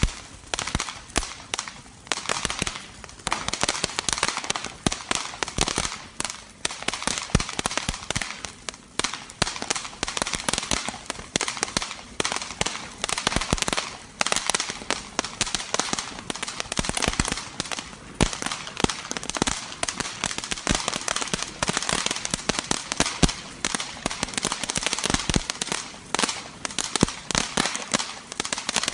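Ravi Kannan 'Tweet' mini crackling fountain firework burning: a steady hiss of the spark spray packed with rapid, irregular crackling pops.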